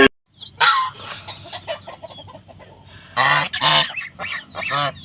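Geese honking: a series of short calls. The loudest come about half a second in, twice in quick succession a little after three seconds, and once more near the end.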